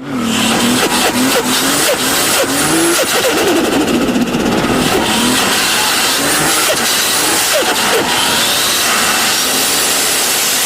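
Turbocharged car engines revving repeatedly, the pitch rising and falling with each blip, with faint rising turbo whistles over the top and short chattering bursts of compressor flutter.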